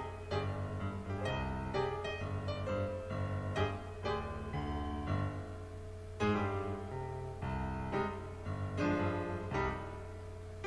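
Piano music: a run of struck notes and chords, one after another.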